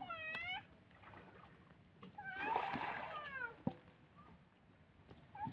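Two high-pitched, drawn-out meow-like calls with a sliding pitch: a short one at the very start and a longer, louder one around the middle.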